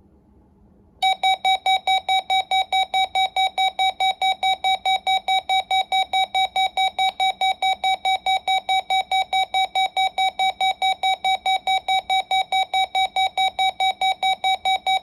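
RadioShack 12-254 weather radio sounding its built-in alert alarm on receiving a Required Weekly Test: a rapid train of identical loud beeps, about four a second, starting about a second in.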